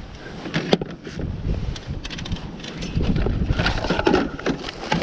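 Wind buffeting the microphone in a steady low rumble, with a few sharp knocks. Rougher scraping or crunching noise starts about three seconds in.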